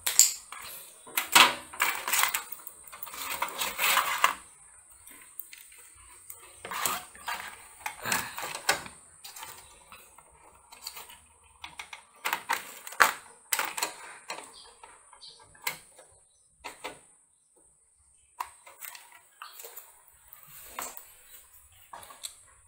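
Irregular clicks, knocks and metallic clatter of a motherboard being fitted back into a steel desktop PC case by hand. The handling is busiest and loudest in the first few seconds and dies away briefly a little past the middle.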